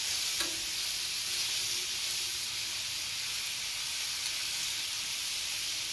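Marinated thin-sliced beef frying in oil on a hot flat-top griddle, a steady high sizzle.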